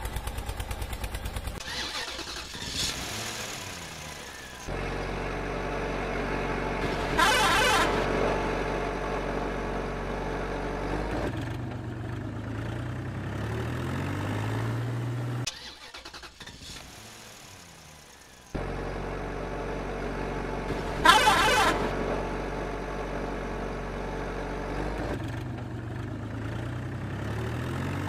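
Vehicle engine sound effect laid over the toys: an engine starting and running steadily, with a brief loud burst a few seconds in and its pitch stepping up later, the same sequence played twice with a quieter gap between.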